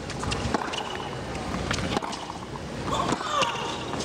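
Tennis rally: a ball struck back and forth by rackets, heard as a series of sharp pops a fraction of a second to about a second apart over the steady hum of the arena, with a short rising squeak-like sound about three seconds in.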